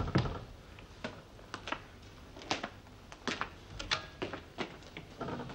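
A panelled wooden door shuts with a heavy knock, followed by irregular footsteps, light knocks and clatter of a wooden chair and crockery as someone sits down at a table.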